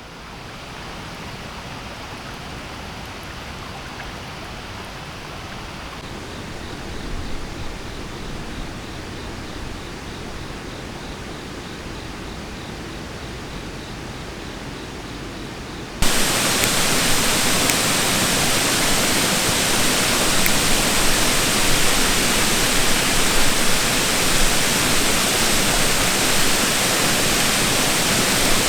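Creek water running steadily. About 16 seconds in it abruptly becomes much louder and brighter, as if heard from right beside the water.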